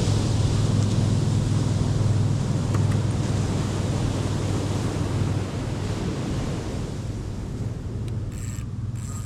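Wind buffeting the microphone over the steady wash of ocean surf, easing a little about five seconds in.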